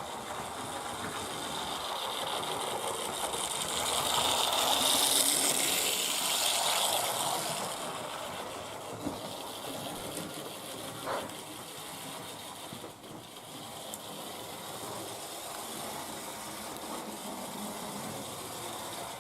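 Old Lima model tank locomotive running around the track, its small electric motor whirring steadily. It grows louder for a few seconds about four seconds in, then settles back, with a couple of faint clicks midway.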